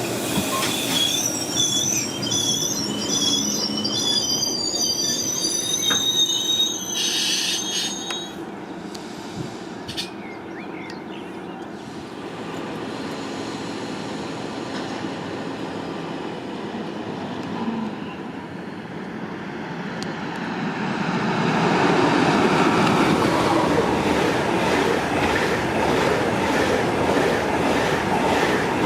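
Train wheels squealing on the rails for the first several seconds, then a quieter steady rumble. From about twenty seconds in, a train runs past louder, with a regular clatter of wheels over the rail joints.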